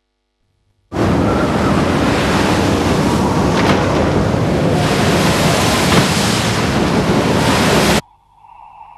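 Loud, steady rush of churning water, like surf heard underwater, starting abruptly about a second in and cutting off sharply near the end, where faint low tones take over.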